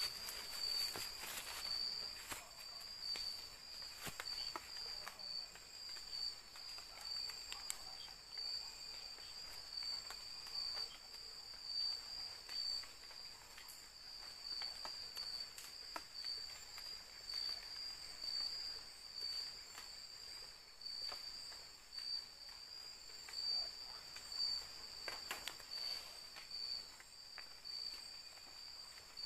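Night insects chirring in a steady high-pitched drone, with a few footsteps through undergrowth near the start and occasional light rustles and knocks.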